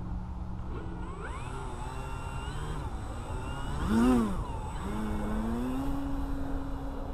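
Electric brushless motor and propeller of an Arrows Husky RC plane on a 6S lipo, throttled up for a takeoff from tall grass. The whine rises in pitch about a second in, swells to its loudest around four seconds with a quick rise and fall in pitch, then holds a steady pitch.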